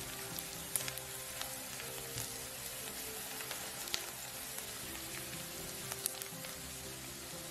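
Chopped garlic and onion sizzling in butter in a nonstick frying pan while being sautéed. A spatula stirs them, giving scattered clicks and scrapes against the pan.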